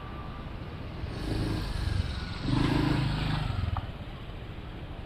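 Motor scooter riding past close by: its small engine grows louder, peaks, then fades as it moves away.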